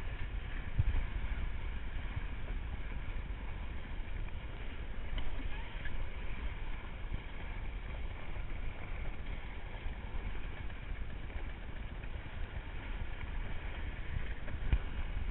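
Wind buffeting the microphone and water rushing along the hulls of a small trimaran under way in choppy water, a steady rushing noise with a low rumble.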